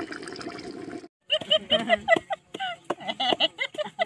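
Running water rushes steadily, then cuts off abruptly about a second in. After a short gap, people are talking.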